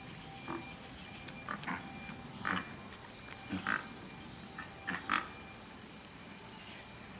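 Great white pelicans at the nest giving a run of short, rough calls, about ten in quick clusters over the first five seconds, then stopping.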